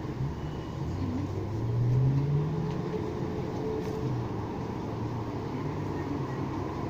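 Road traffic: a car passes, its engine note rising and loudest about two seconds in, over a steady background of traffic noise.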